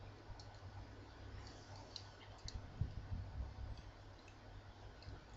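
A few faint, scattered clicks of a small plastic hair-curling gadget being handled, over low handling rumble.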